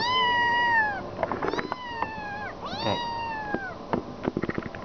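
Kitten meowing three times in quick succession, each call about a second long and dropping in pitch at the end: begging for food. Short scratchy clicks come between the calls and after the last, its claws catching on a paper food bag.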